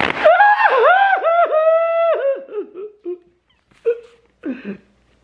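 A folding hand fan snaps open with a clack, then a loud, high, wavering wail with short dips in pitch runs for about two and a half seconds and fades out. A few softer clacks of the fan follow near the end.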